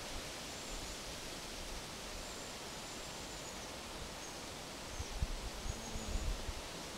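Outdoor ambience: a steady background hiss with faint, high bird chirps now and then, and a few low bumps about five to six seconds in.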